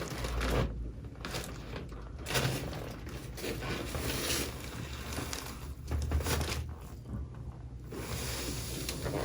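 Irregular rustling and shuffling over a low hum: a body and clothing shifting on a chiropractic treatment table.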